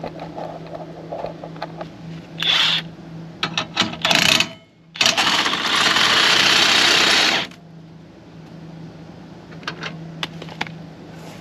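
Cordless drill cranking a scissor-type RV stabilizer jack: a few short trigger bursts, then a sustained run of about two and a half seconds that stops abruptly as the jack screw is driven to extend the jack. A few light clicks follow near the end.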